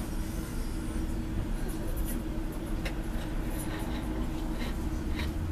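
Steady low hum and rumble inside a standing tram, with a few light clicks.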